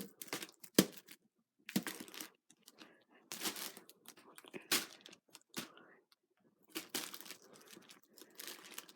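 A cat scratching and clawing at something, with irregular scratchy crinkling and tearing strokes that come and go.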